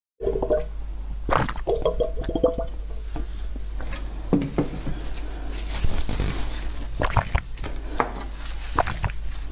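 Close-miked ASMR food sounds from liquid-filled jelly food such as edible water balls: wet squishes, small clicks and drips at uneven intervals, with a few short squeaks in the first few seconds. A steady low hum runs underneath.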